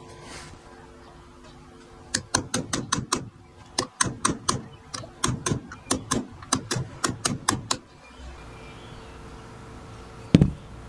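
Rapid light metal taps, about twenty at roughly three to four a second, from a pin punch struck against the brass plate inside an old night latch's lock case, staking it in place. Near the end, one louder knock as the lock case is set down on the bench.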